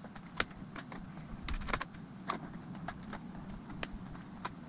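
Irregular light clicks and taps of a small screwdriver and hands working tiny screws on a laptop's plastic case, a sharp click about half a second in the loudest.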